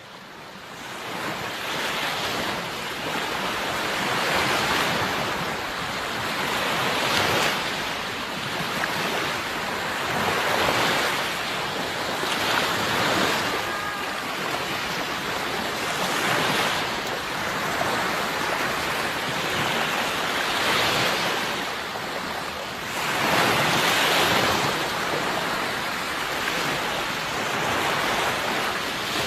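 Sea waves breaking and washing ashore, the surf swelling and easing every three to four seconds. The surf fades in from silence over the first second or two.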